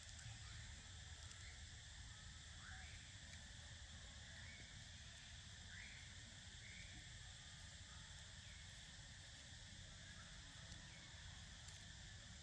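Faint steady insect chorus, with a few faint short chirps scattered through it.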